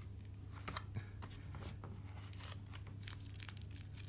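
Small clear plastic parts bag crinkling and rustling as fingers handle it, with scattered light clicks that grow busier in the second half.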